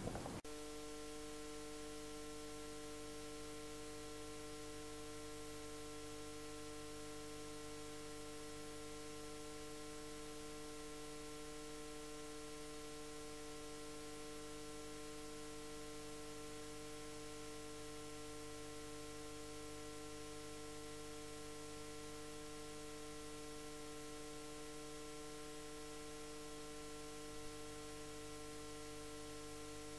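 Faint, steady electrical hum: a few held tones over a low hiss.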